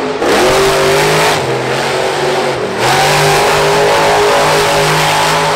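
Monster truck engine held at high revs while spinning donuts, its pitch dipping briefly twice, about a quarter second in and again near three seconds, then climbing back.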